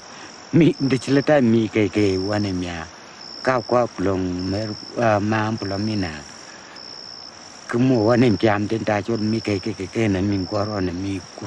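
A man talking in his own non-English language, over insects chirping in short, high, evenly repeated pulses about once a second.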